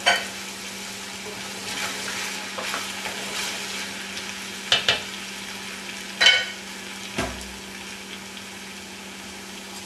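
Diced vegetables (potatoes, onions, celery, with fresh cauliflower) sizzling steadily in olive oil in a stainless steel pot, as they are mixed in. A few sharp knocks break through the sizzle: a close pair about five seconds in, and the loudest about six seconds in.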